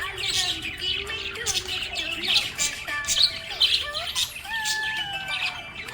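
Pet budgies chirping and squawking in quick, busy bursts, with a gliding melodic tune running underneath.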